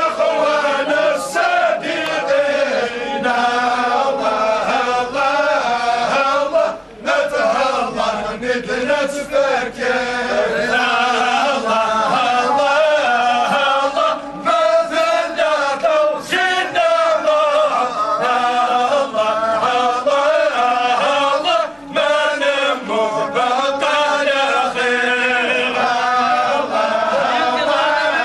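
A crowd of men chanting together in unison, a slow religious funeral chant carried by many voices at once, with brief pauses for breath about seven seconds in and again near twenty-two seconds.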